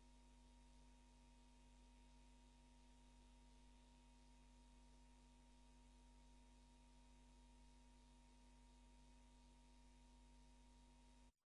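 Near silence: only a steady faint hum and hiss, cutting out briefly near the end.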